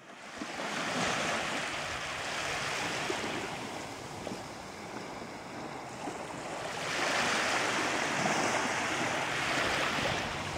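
Sea surf washing onto a beach, a steady rush that swells about a second in, eases off, then swells again around seven seconds in.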